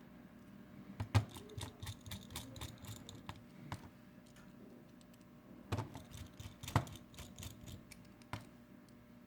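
Irregular small clicks and taps of a precision screwdriver and tiny screws on a phone's plastic housing as it is screwed back together, with a few sharper clicks about a second in and near the seven-second mark.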